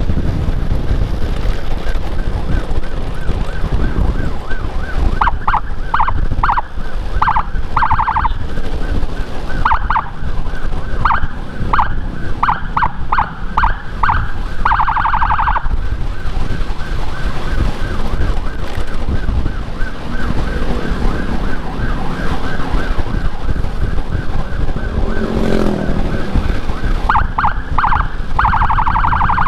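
Electronic emergency siren sounded in short repeated bursts, a few held longer, over steady wind rush on a moving rider's microphone.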